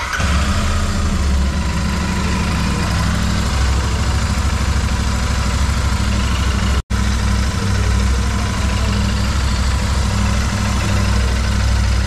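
Royal Enfield Super Meteor 650's parallel-twin engine idling steadily just after a tappet (valve clearance) adjustment and new gasket. The tappet ticking is now barely there. There is a momentary break in the sound a little past halfway.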